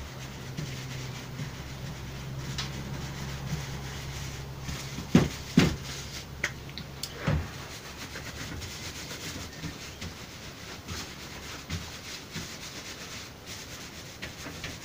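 Hands rubbing and smoothing wet felt laid on bubble wrap, a soft continuous rubbing. Three sharp knocks come between about five and seven seconds in, and a steady low hum underneath stops just after them.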